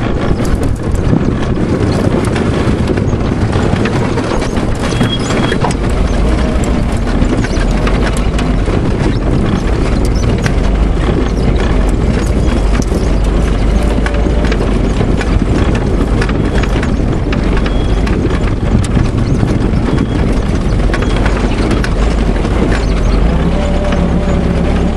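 Home-built dune buggy running down a rough dirt trail: a steady engine hum under constant rattling and knocking as the frame bounces over the ruts. The engine hum gets stronger about six seconds in, and a rising tone comes in near the end.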